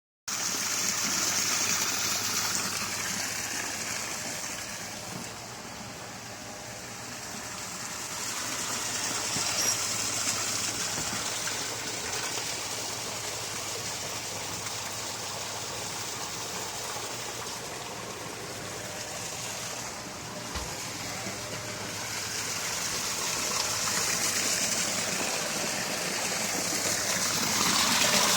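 Waterfall running: a steady rush of falling, splashing water that grows slowly quieter and then louder again, loudest near the end.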